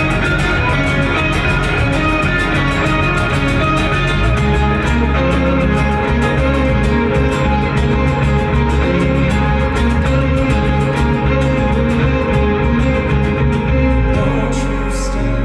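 Live band music with guitar, no singing: an instrumental passage with a steady beat, the bass growing heavier about four seconds in.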